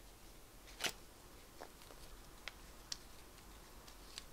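Faint handling noises: a few scattered sharp clicks and rustles from gloved hands moving about, the loudest about a second in.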